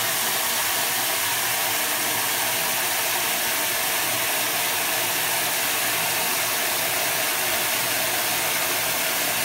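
Steady, even rushing noise from the bathtub, with a faint low hum beneath it.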